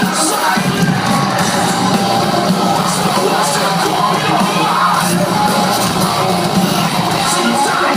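Heavy metal band playing live at full volume, heard from the audience.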